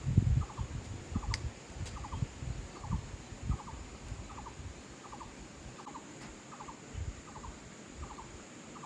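A repeated chirping call from a small animal: a quick triple chirp that recurs about every three quarters of a second. Under it are low thumps and rumble, mostly in the first few seconds, and one sharp click.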